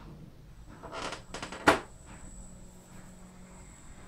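Plastic dust cover of a turntable being lowered and shut. A brief rustle of handling leads into a few clicks and one sharp clack as the lid closes.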